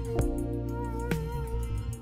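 Instrumental background music: sustained tones under a wavering melody, with soft beats about a second apart.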